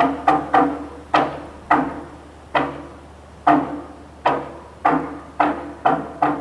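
Temple percussion struck in a series of resonant, pitched knocks, each ringing briefly. The strokes slow to about one a second in the middle, then quicken again near the end, the way a ritual roll is played.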